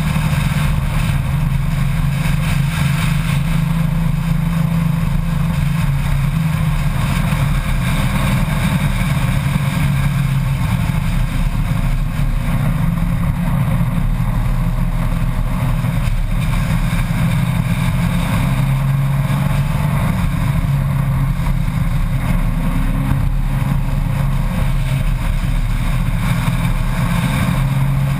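Honda Gold Wing motorcycle engine running steadily at road speed, its note shifting slightly in pitch now and then, with wind rush over the bike-mounted camera.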